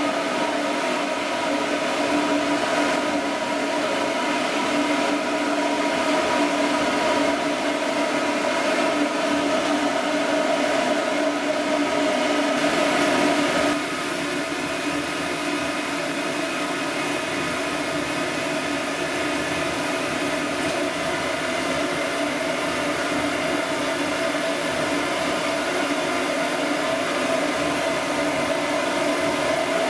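Pet blow dryer running steadily: a loud, even rush of air with a steady motor hum. It drops a little in level about halfway through.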